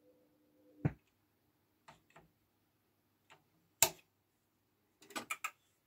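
Mechanical clicks from a Braun PS350 turntable's tonearm and controls being handled: a faint hum stops with a click about a second in, a few faint ticks follow, then a sharper click near four seconds and a quick run of small clicks near the end.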